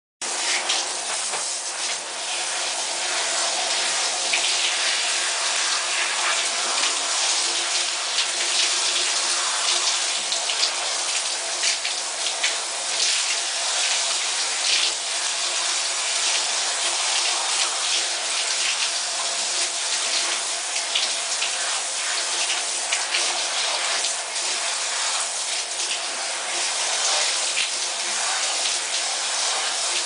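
Shower running: a steady hiss of water spray falling on hair and into the shower as it is rinsed.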